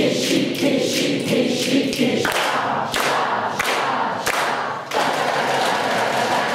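A group of people singing and vocalizing together in an improvised body-percussion piece, with sharp claps and thumps every half second or so. About two seconds in, the sung tones give way to a noisier wash of voices.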